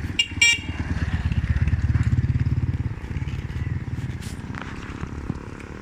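An engine running with a rapid low pulsing, swelling a little about two seconds in and then easing off. A brief high chirp sounds just after the start.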